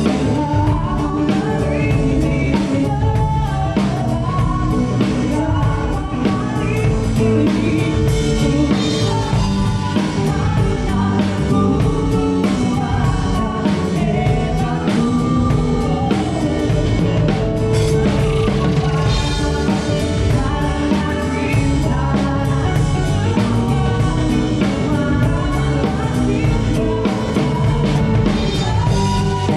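Live band with drum kit and guitar playing a rock-style song while a singer sings, during a sound check.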